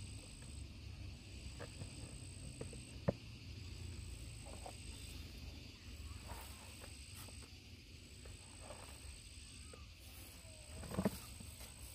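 An insect trilling at a high, steady pitch in even phrases of about a second and a half with short breaks between, over a low rumble. A sharp knock comes about three seconds in and a louder thump near the end.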